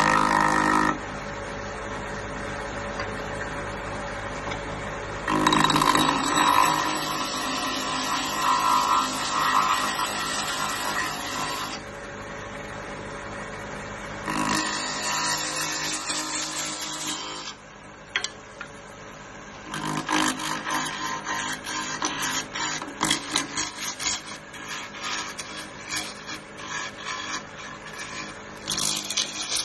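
Wood lathe running while a parting tool cuts into a spinning wood cylinder: a rough scraping hiss that comes in several bouts with short pauses between, the last bout choppy and fluttering.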